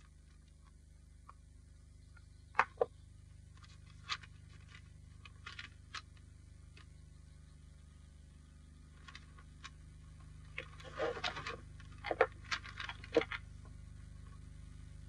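Hands handling paper and small objects at a desk: scattered small taps and paper rustles, with two sharp taps about two and a half seconds in and a busier run of rustling and taps from about ten to thirteen seconds. Under them runs the steady low hum of an old film soundtrack.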